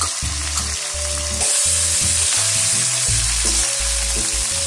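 Fresh mint, coriander and curry leaves sizzling as they go into hot oil in an aluminium kadai, stirred with a steel spatula; the sizzle gets louder about a second and a half in.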